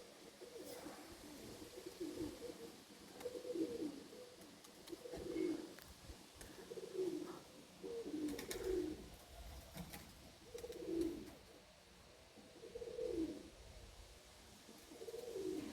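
Domestic pigeons cooing: low, repeated coos roughly every two seconds.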